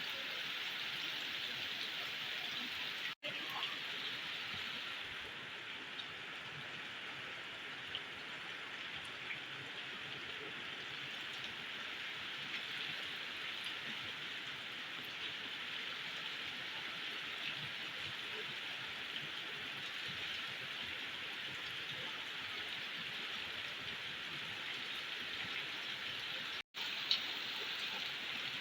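Heavy rain falling, a steady even hiss with small scattered drop ticks, broken by two very brief silent gaps about 3 seconds and 27 seconds in.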